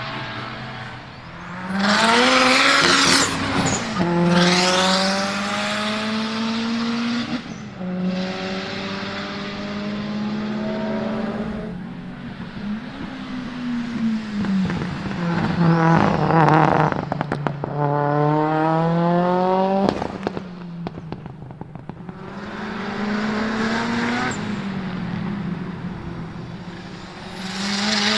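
Turbocharged rally-style cars lapping a race circuit. Engines rev up through the gears, with a break at each shift, and several cars pass close by. A quick run of sharp cracks from an exhaust comes about twenty seconds in.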